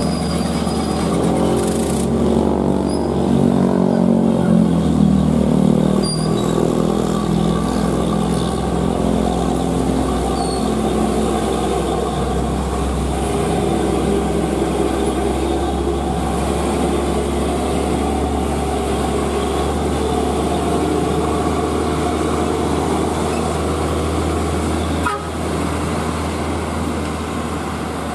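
Hino 500 tractor unit's diesel engine labouring under load as it pulls a container trailer up a steep grade. The engine's pitch rises and falls over the first few seconds, then settles into a steady low drone, with other traffic passing.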